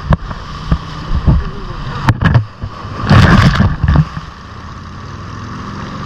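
Ocean waves breaking against jetty rocks: several sharp splashes, then a loud crash of spray about three seconds in, settling into a steady wash of water.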